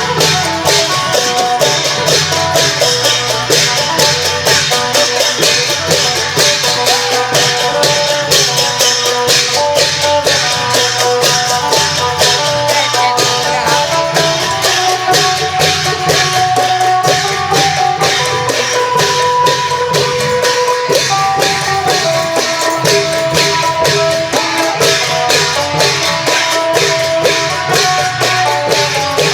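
Isan klong yao procession music: a phin lute plays a quick plucked melody over long drums and jangling cymbals keeping a steady, driving beat.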